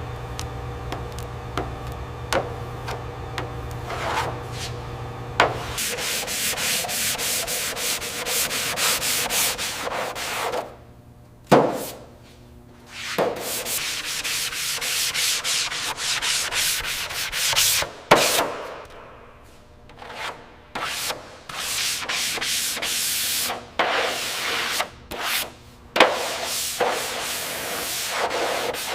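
Rough abrasive rubbing like sanding, in stretches of a second or two with short breaks. For the first few seconds there is only a steady hum with a few light knocks.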